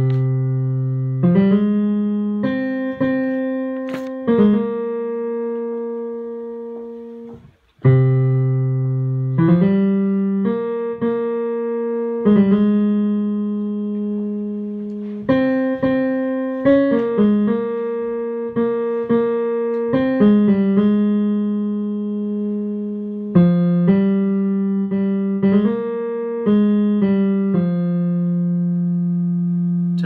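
A choir's bass part played on piano, one note at a time: a slow single melodic line of held notes, each struck and fading away, with a short break about seven and a half seconds in.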